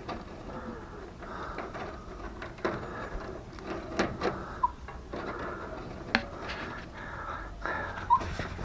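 Rustling as wiring and plastic parts inside a washing machine are handled, with a few sharp clicks and knocks scattered through.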